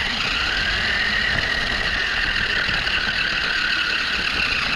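RC car's electric motor and gears whining steadily at a constant pitch while it drives, heard close up from on board the car.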